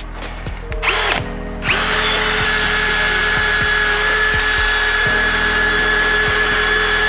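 Cordless drill spinning a wire wheel brush, scrubbing rust and grime off the rear brake hub and pad slides. A short burst comes about a second in, then from nearly two seconds in a steady, even motor whine over the scratch of the wire.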